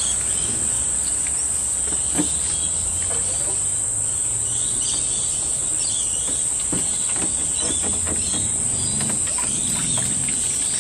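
A steady, high-pitched insect chorus drones throughout, with scattered knocks and clunks as a PVC pipe is handled and fitted into the tank.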